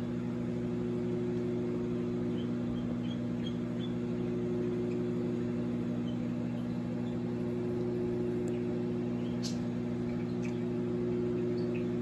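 Microwave oven running with a steady electrical hum, with a few faint ticks and clicks, most of them in the second half.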